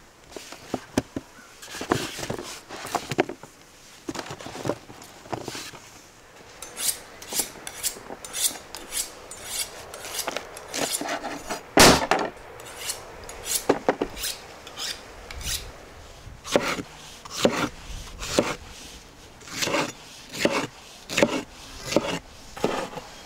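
Large kitchen knife slicing a yellow bell pepper on a wooden cutting board: a long run of sharp chops, one or two a second, with the loudest near the middle. Between the chops, a knife blade scrapes along a honing steel.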